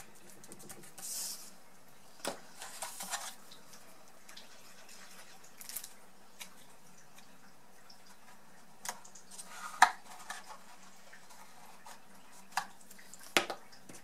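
Hands handling cardstock pieces and a liquid glue bottle on a craft mat: soft rustles with scattered light taps and clicks, the sharpest click about ten seconds in.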